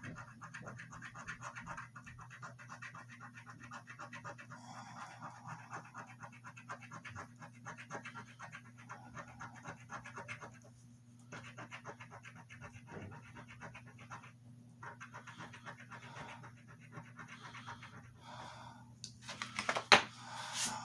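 A coin scraping the latex coating off a paper scratch-off lottery ticket in quick, repeated strokes, with a few short pauses. Near the end there is one sharp, louder knock.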